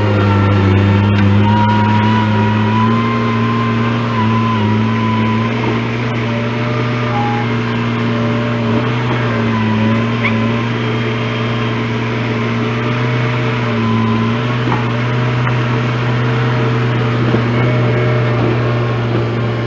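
Engine running at a steady speed, pitch holding nearly level with small dips and recoveries.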